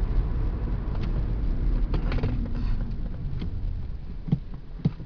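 Car engine and road noise heard from inside the cabin, a low rumble that eases off as the car slows for a pedestrian crossing. Two short sharp clicks come near the end.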